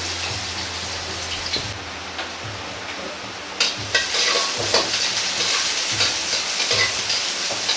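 Ginger and carrot strips sizzling in a wok over a high flame while a steel wok ladle stirs them, scraping and knocking against the pan. The knocks come more often from about three and a half seconds in.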